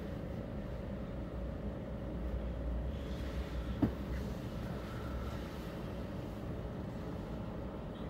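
Steady hum and low rumble inside the cab of a standing tram, with a single sharp click about four seconds in.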